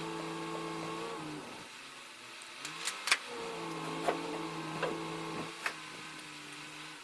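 A small electric motor running steadily, winding down about a second in, then spinning up again and running for several seconds, with a few sharp clicks along the way.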